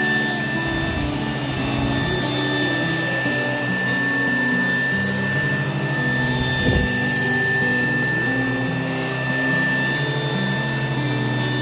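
Raycop cordless bedding vacuum cleaner running steadily, its motor giving a constant high whine.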